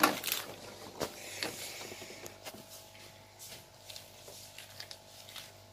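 A few light knocks and clatters of plastic toy kitchenware being handled, the sharpest right at the start and another about a second in, then quiet room tone with a faint steady hum.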